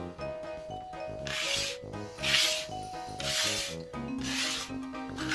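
A hand brushes debris across a plywood workbench in four sweeping rubs about a second apart, over background music.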